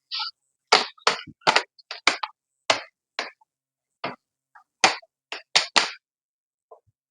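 About fifteen sharp clicks and knocks at irregular spacing from hands working on an opened laptop, typical of plastic and metal parts being handled and pressed into place.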